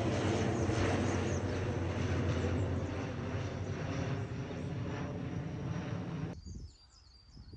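Loud, steady engine drone with a low hum, easing off slightly and then cut off abruptly about six seconds in.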